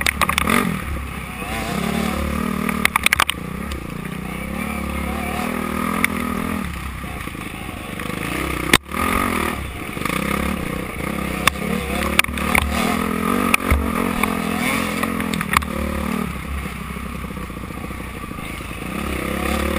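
Dirt bike engine running hard under the rider's throttle, its pitch rising and falling, heard close up on the moving bike. Clatter and knocks sound out as the bike rides over the rough trail, with one sharp knock about nine seconds in.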